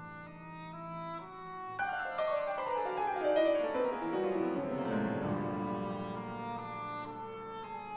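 Symphony orchestra playing: a stepping melody over a held low note, then about two seconds in a cascade of falling runs that settles into held chords.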